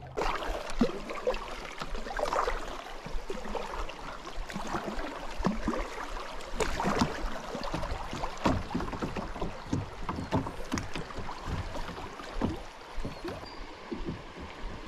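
Creek water sloshing and splashing around a Lifetime Dorsal kayak's hull as it moves downstream, with many small irregular splashes and drips over a steady wash of water.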